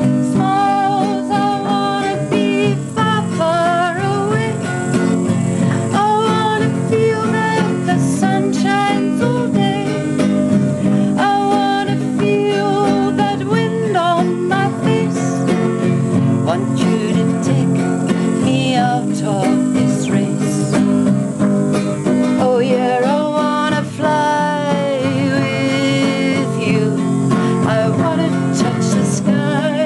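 A woman singing and accompanying herself on an acoustic guitar.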